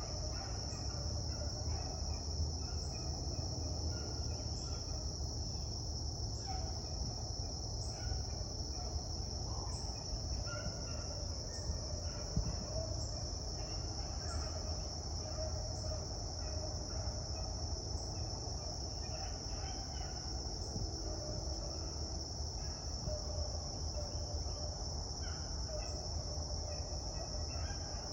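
Steady outdoor insect chorus, a constant high trill, over a low rumble, with scattered faint short calls.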